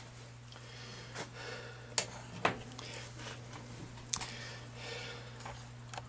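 Faint handling noise: light clicks about two seconds in, again half a second later and once more about four seconds in, with soft rustling, over a steady low hum.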